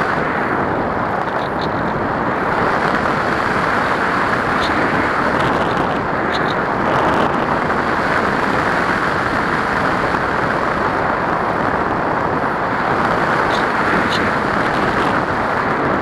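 Steady rush of airflow over the onboard camera of a Radian RC glider in flight, with a few faint ticks.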